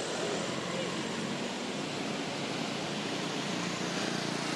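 Steady rushing background noise outdoors, with no distinct events in it.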